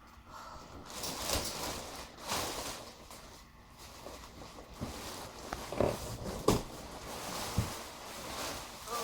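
Rustling and handling noises from unpacking, with a few short knocks in the second half.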